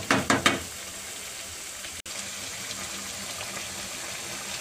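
Chicken pieces cooking in sauce in a stone-coated wok: a few quick spatula strokes against the pan in the first half-second, then a steady sizzling hiss as the sauce simmers.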